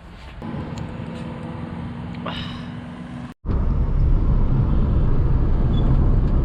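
A steady engine hum, then, after an abrupt cut, the loud low rumble of a moving road vehicle, with road and wind noise.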